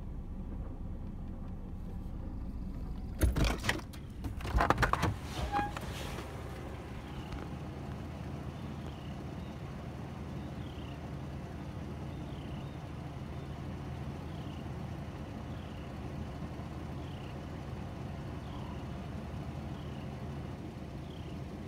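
A car's electric power window is lowered, with loud mechanical noise about three to six seconds in, over the steady low hum of the idling vehicle. Afterwards a small bird gives a short, falling, high chirp roughly once a second.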